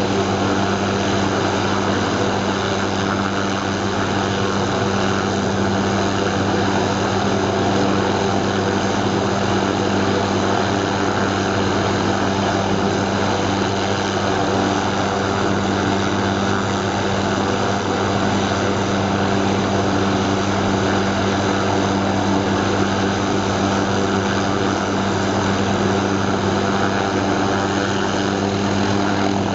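1977 Hughes 369D (MD500) helicopter running steadily on the ground, its Allison 250 turboshaft engine and main rotor turning at a constant speed, with an unchanging mix of low tones and hiss.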